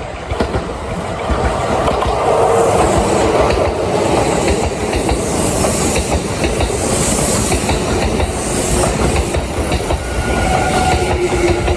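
Kintetsu 30000-series and 22600-series limited express train running along the platform, its wheels and running gear loud and steady, building up over the first two seconds.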